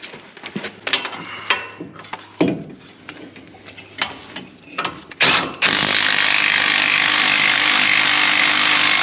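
Clicks and clanks of the socket and bolt being handled, then about five seconds in a Ridgid 18V cordless impact wrench starts up and runs steadily and loudly, driving a front hub mounting bolt.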